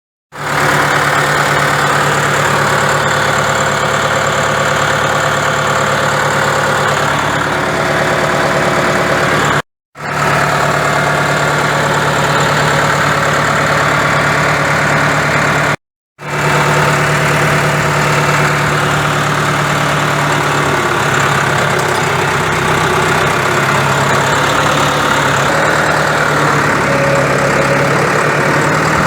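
A large machine engine idling steadily, with a slight shift in its pitch about two-thirds of the way through. The sound cuts out twice for a moment.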